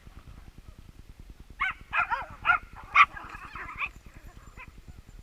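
A small dog yapping and yelping in a quick run of high-pitched barks, about a second and a half in and lasting a couple of seconds, over a low steady rumble.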